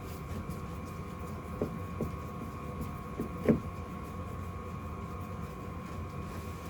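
A steady hum with a few faint knocks, the loudest about three and a half seconds in.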